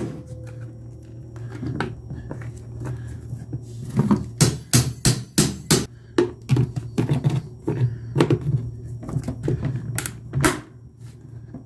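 Screwdriver prying the sealed plastic lid off a car battery: a quick run of sharp plastic cracks and clicks as the seam gives way, thickest from about four seconds in, with the last loud crack near the end.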